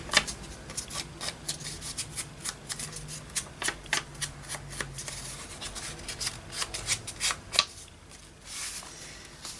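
Ink pad dabbed and rubbed along the edge of paper: a run of quick, irregular light taps with paper rustling.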